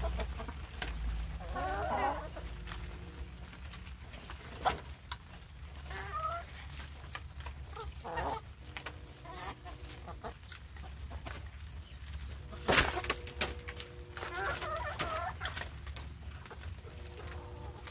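Hens clucking in short, wavering calls while they feed, with scattered sharp taps, the loudest about 13 seconds in.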